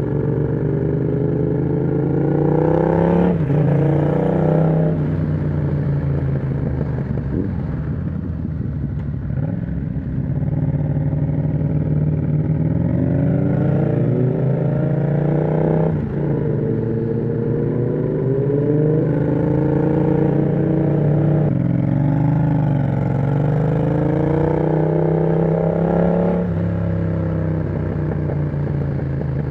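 Yamaha MT-07's parallel-twin engine through an aftermarket exhaust with the dB killer removed, pulling hard while riding. The pitch climbs and drops abruptly at each gearshift, four times over.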